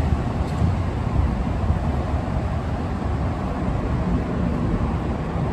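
Steady low rumble of road traffic on the overpass, with gusty wind on the microphone.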